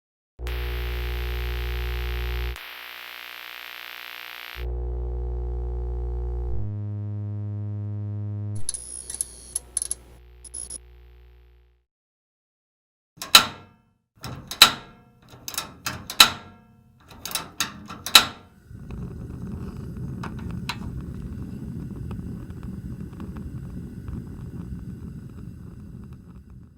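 A string of separate editing sound effects: a low pitched synthetic tone played twice, a second tone, a flurry of clicks, a run of about eight sharp hits, then a steady rumbling noise.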